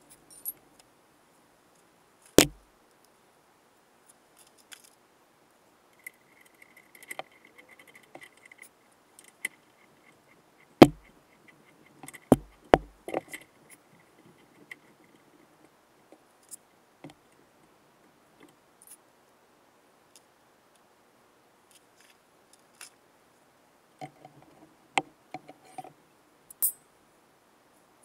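Scattered sharp metallic clicks and knocks of a hex key and bolt being worked into a plastic bumper mount while a licence-plate relocation bracket is fitted. A few louder single knocks stand out, with a quick run of clicks near the middle and again near the end.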